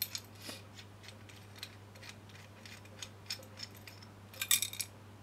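Light metallic clicks and rattles of a steel A/C compressor clutch puller being handled, its threaded screw turned by hand, with a brief louder cluster of clicks about four and a half seconds in.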